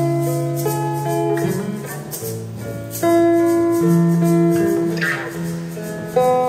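Instrumental music: held chords that change every second or two, with plucked guitar notes and a shaker.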